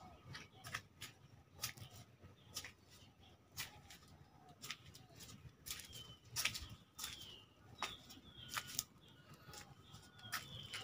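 Irregular sharp clicks and snaps, with a small bird giving short downward chirps again and again through the second half.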